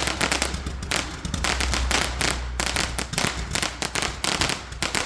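A large firecracker battery (a 'Maschinegewehr' cracker) going off in a rapid, unbroken string of bangs, several a second, over a low rumble.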